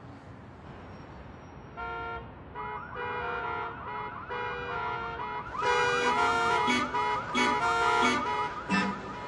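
Car alarm sounds, warbling siren tones and chirps, sequenced into a rhythmic tune. They enter about two seconds in and get louder and more pulsing about six seconds in.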